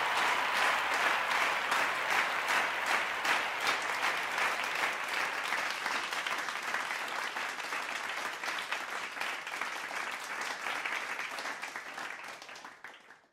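A group of people applauding, dense overlapping claps that slowly die down and fade out near the end.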